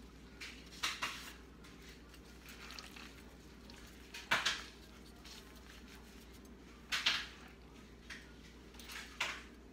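Disposable plastic gloves crinkling and a plastic mixing bowl being handled as crab cake mixture is scooped and patted into patties by hand: a few short rustling, clattering bursts.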